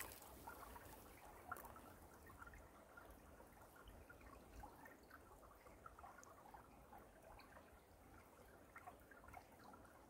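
Shallow stream trickling faintly over pebbles and rocks, a steady hiss of flowing water with a constant patter of small gurgles and drips.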